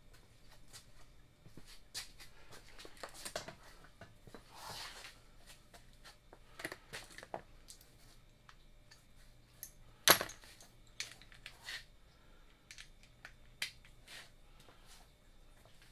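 Scattered light clicks and metallic clinks of small parts and tools being handled, with one sharper click about ten seconds in.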